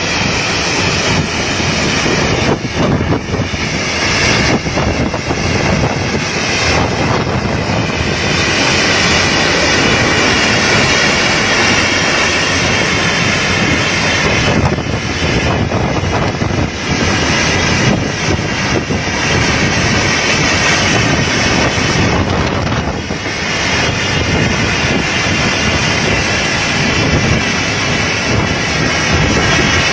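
Typhoon-force wind and driving rain roaring on the microphone, a loud, dense roar that swells and dips in gusts.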